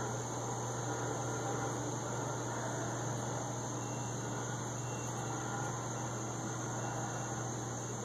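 Steady background noise with no distinct events: a constant low hum with a constant high-pitched drone above it.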